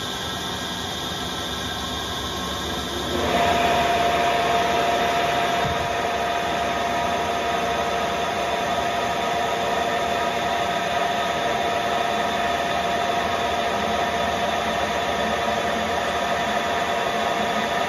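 Harrison M400 lathe running while a threading tool cuts an M24 x 1.5 thread along a long, unsupported bar. About three seconds in, the noise gets louder and a steady whining tone comes in over the machine's running and holds, as the tool cuts along the bar.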